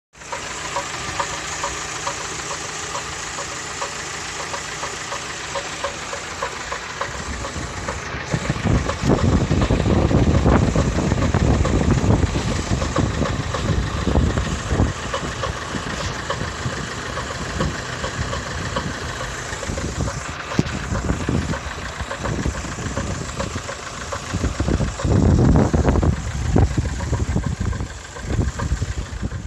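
Engine running with a knock, growing louder for several seconds about a third of the way in and again near the end.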